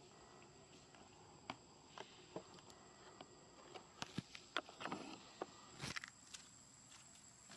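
Quiet outdoor ambience: a steady, thin, high insect drone, with scattered light clicks and a short stretch of crackly rustling about four to six seconds in.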